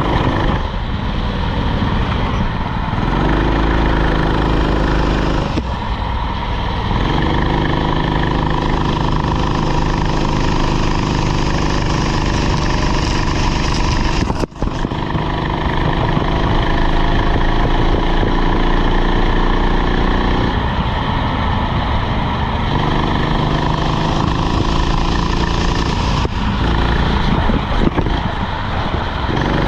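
A rental go-kart engine running hard, holding a steady high pitch along the straights and dropping off then picking back up for the corners several times, with a steady rush of wind and road noise over it.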